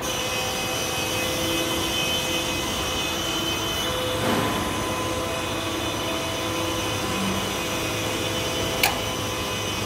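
Small two-stop freight lift running, with a steady motor hum and whine carrying several fixed tones as the car travels up the shaft. There is one sharp click near the end.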